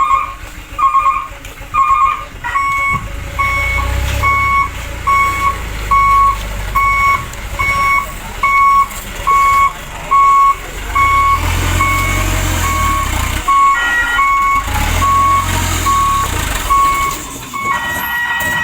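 Reversing beeper on an RC model truck's sound unit, beeping about once every 0.8 seconds, over the low rumble of a model engine sound that swells and fades several times. The beep changes pitch slightly after two seconds or so, and near the end it turns into a steady tone.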